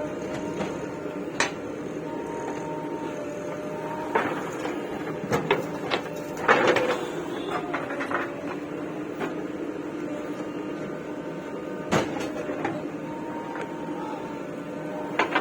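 Diesel engine of a JCB 3DX backhoe loader running steadily while it works, with intermittent metallic clanks and knocks, the loudest clatter about six and a half seconds in and a sharp knock near twelve seconds.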